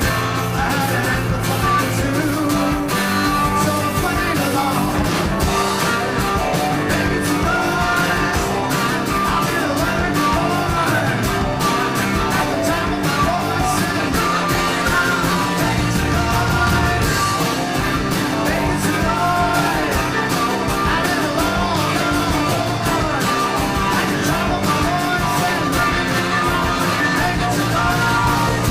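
Rock music with singing over guitar, bass and drums, playing continuously.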